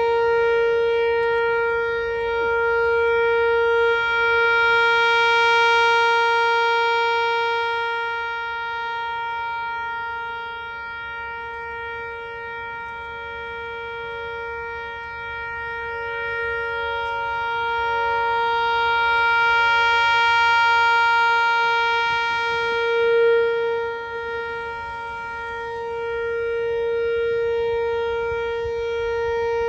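Whelen WPS-4004 electronic outdoor warning siren sounding a steady tone during its weekly test. It holds one pitch throughout and swells and fades slowly in loudness as the rotating head sweeps round.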